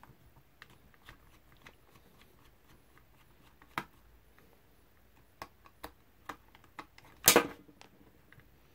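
Small clicks and ticks of a precision screwdriver backing tiny screws out of a drone's plastic body, with a louder short clatter about seven seconds in.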